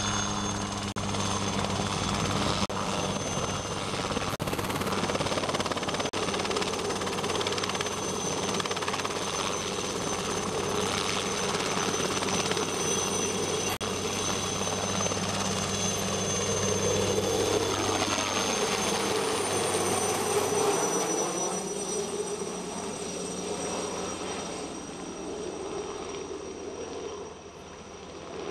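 Helicopter flying close by, its rotor and engine noise carrying a steady high whine; the sound swells and shifts as it passes about two-thirds of the way through, then fades as it moves away near the end.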